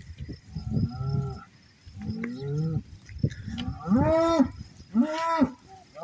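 Cattle mooing: four short moos, each rising and then falling in pitch, the last two, about four and five seconds in, the loudest.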